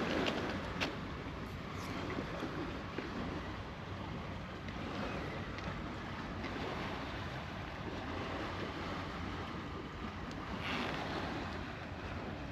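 Steady outdoor wash of sea surf and wind buffeting the microphone, with a couple of light clicks in the first two seconds and a brief louder swell near the end.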